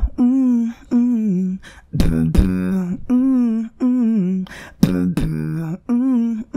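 A man beatboxing: short wordless sung phrases, one roughly every second, with sharp kick- and snare-like mouth hits between some of them.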